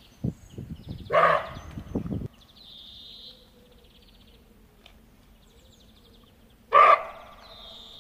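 Two short, loud, bark-like animal calls about six seconds apart, the first with a low rumble around it, over faint high chirping from birds or insects.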